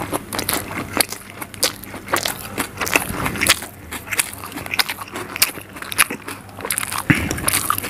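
Close-miked eating of a spicy egg omelette: chewing with wet lip smacks and many sharp mouth clicks and crackles, and fingers working into the soft omelette on the tray.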